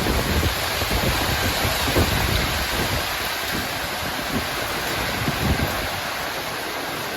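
Heavy rain pouring steadily, with low rumbling beneath it that eases as it goes on.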